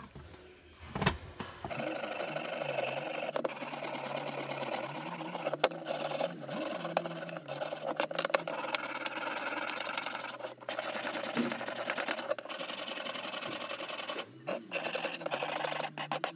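Hand-held steel wire brush scrubbed rapidly back and forth over a rusty G clamp, scrubbing off the rust: a steady, dense scratching that starts about two seconds in and breaks off briefly a few times.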